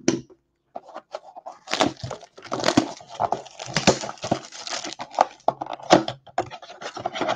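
Clear plastic shrink wrap being torn and crinkled off a cardboard trading-card blaster box, starting about a second in. The sound is an irregular crackling rustle with sharp snaps.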